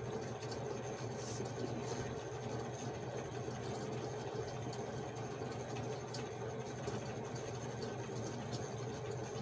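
A steady low mechanical hum with a few faint, small ticks.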